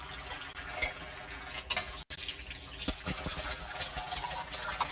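Dishes and utensils clinking as they are washed at a kitchen sink, with a few separate clinks. After a brief dropout about two seconds in, a busier run of small clinks and scraping sits over a steady hiss.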